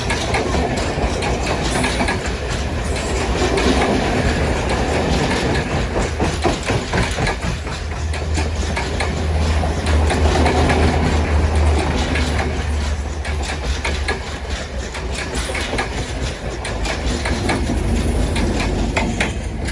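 Train running past, its wheels clacking over the rail joints over a steady low rumble.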